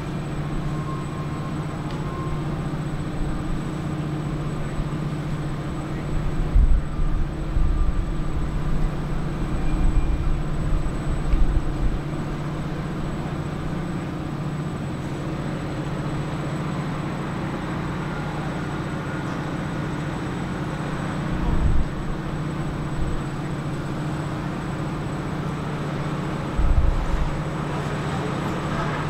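Steady low machinery hum, with low buffeting rumbles from about six to twelve seconds in and twice more near the end.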